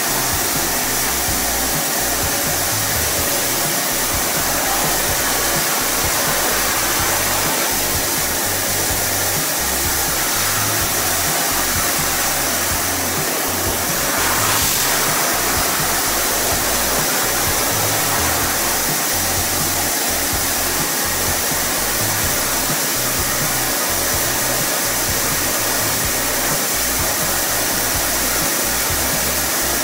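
Homstar HS VC2300 Turbo Power vacuum cleaner running steadily with a continuous rushing motor-and-airflow noise, briefly a little louder about 14 seconds in.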